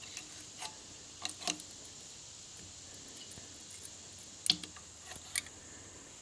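A few light metal clicks and taps from a 10 mm wrench and feeler gauge against the rocker-arm nut as the valve clearance is set on a Briggs & Stratton OHV engine. The clicks are scattered, about five in all, over a faint steady hiss.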